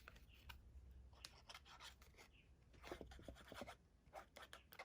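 Faint handling of card stock and paper craft pieces: light taps, small clicks and soft rustles as the pieces are pressed and positioned, busiest about a second in and again about three seconds in.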